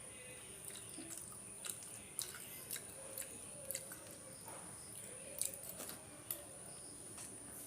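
A person chewing a mouthful of rice with dal and vegetable curries, with irregular small wet mouth clicks and squishes.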